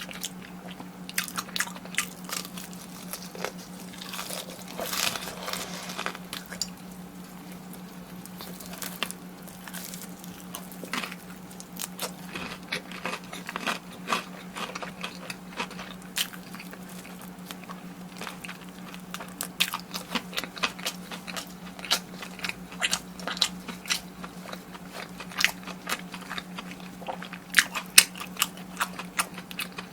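Close-up biting and chewing of crisp fried food, with repeated sharp crunches and wet chewing, the crunches coming thicker near the end.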